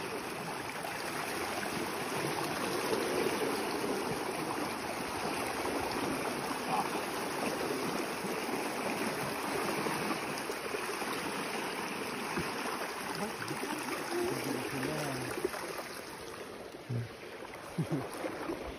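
Fast, swollen river rushing and churning steadily, easing slightly near the end.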